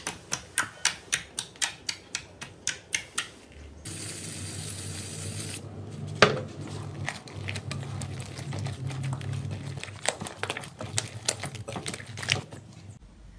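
Clear jelly slime pressed and squished by hand, popping with sharp clicks about four times a second. After a short hiss, a thicker slime is worked and stretched in a bowl with denser crackling and squelching, and one loud sharp click about six seconds in.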